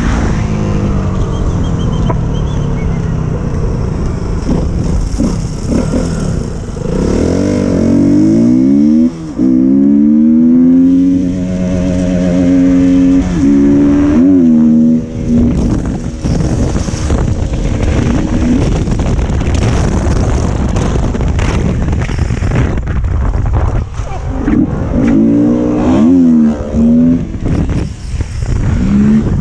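Motorcycle engine revving and accelerating. Its pitch climbs in stages about seven seconds in, holds high, then drops away around fifteen seconds. It revs up again twice near the end, over a steady rushing noise.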